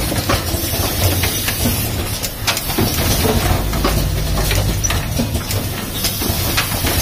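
Automatic rapid test kit assembly machine running: a steady low hum and hiss with frequent irregular clicks and knocks from its moving parts.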